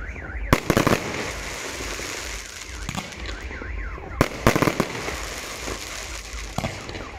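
Fireworks display: aerial shells bursting in two quick volleys of sharp bangs, about half a second in and just after four seconds in, with single bangs between and a low rumble underneath. A faint warbling tone rises and falls in the background.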